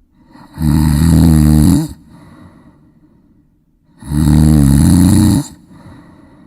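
Loud snoring: two long snores, each over a second, about three and a half seconds apart, with softer breathing between them.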